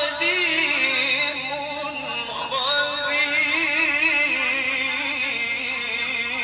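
A man singing a slow, drawn-out melody with a strong, wavering vibrato on long held notes.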